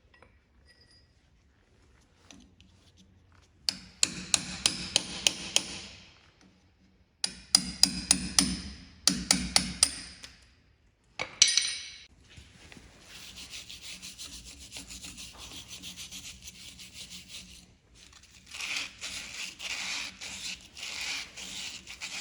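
Hand scrubbing or rubbing on hard parts: two runs of quick, sharp strokes at about three a second, then a longer stretch of steadier scrubbing hiss, with a rougher spell near the end.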